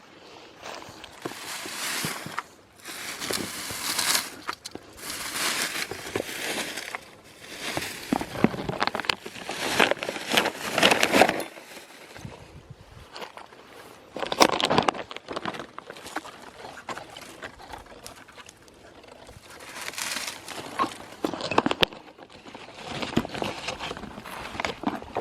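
Crinkling and rustling of litter and a plastic trash bag being handled, with crunching footsteps, in irregular bursts.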